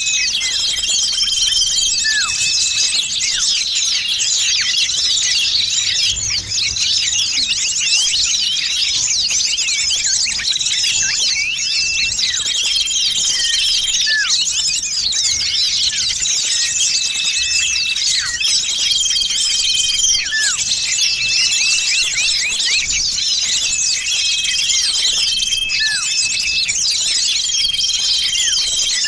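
A dense, unbroken chorus of many small songbirds chirping and twittering rapidly, with short steady whistled notes repeating every few seconds and an occasional falling call. It is a mixed bird-lure recording of a noisy small-bird flock, meant to draw small birds in.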